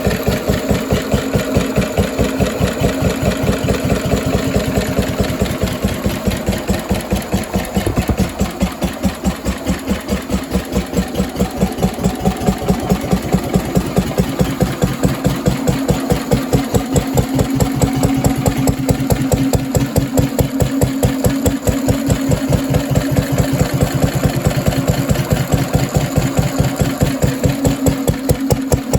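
Vintage Lister D single-cylinder stationary engine running unloaded at a slow, even beat, each firing stroke a distinct thump at roughly four to five a second.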